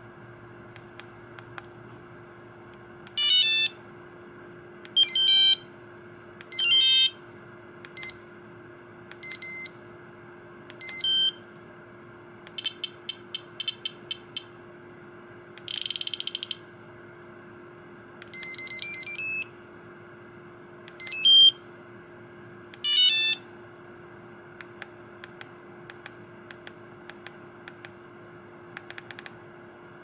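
Sony Ericsson T100 mobile phone's small built-in speaker playing its preset message sounds one after another as the list is scrolled. There are about ten brief electronic beep jingles, a quick run of ticks, and a short noisy clap sound about sixteen seconds in. Faint keypad clicks come before and after.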